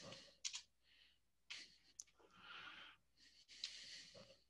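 Near silence: faint breaths into a microphone and two soft clicks.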